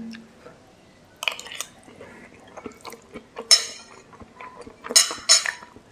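Metal spoon clinking and scraping against a ceramic bowl of fried noodles, with soft wet eating sounds between. There are a few sharp clinks: one just over a second in, a louder one about three and a half seconds in, and two close together near the end.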